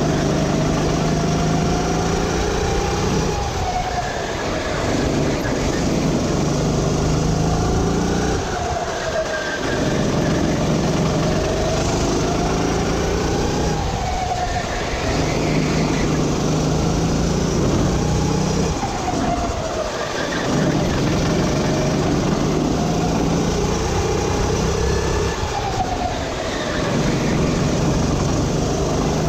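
Sodi RT8 rental kart engine under racing load, heard from the driver's seat: its pitch climbs steadily along each straight and drops off each time the driver lifts and brakes for a corner, about five times.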